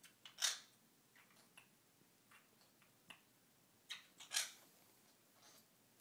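Quaker parrot in its wire cage making short, sharp clicking sounds: two louder ones about half a second in and near four and a half seconds, with fainter ticks between.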